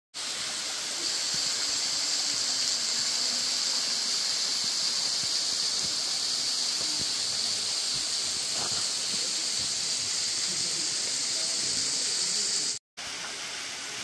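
Steady rush of falling and flowing water, as from a mountain waterfall or a fast levada stream, a loud even hiss. It cuts out for a moment near the end and comes straight back.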